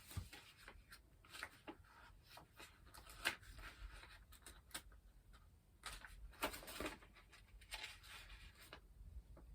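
Faint, scattered small clicks and light rustling of handling in a quiet small room.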